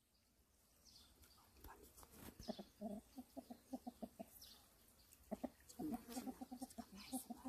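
Rooster clucking: two runs of quick, low clucks, about five or six a second, the second run starting about five seconds in.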